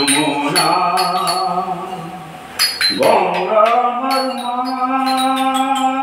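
A man singing a slow melody into a handheld microphone, drawing out long notes; the longest begins about three seconds in and is still held at the end. Short high clinks sound now and then behind the voice.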